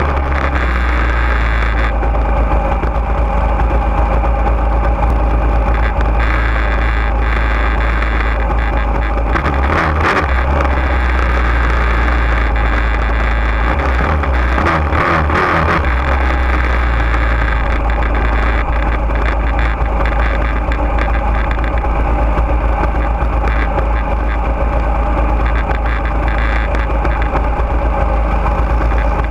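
Junior dragster's single-cylinder engine running steadily at low speed, heard close up from on board the car, with a couple of brief changes in its low rumble about a third and about halfway in.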